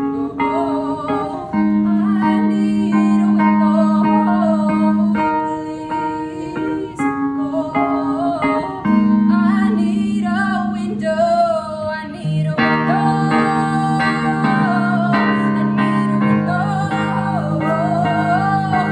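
A woman singing while she plays a Wurlitzer electric piano. Held chords sit under a wavering vocal melody, and lower bass notes join about twelve seconds in.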